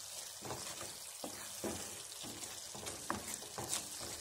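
Thick chicken curry gravy sizzling in a nonstick pan while a wooden spatula stirs it, with a scraping stroke about twice a second over a steady frying hiss.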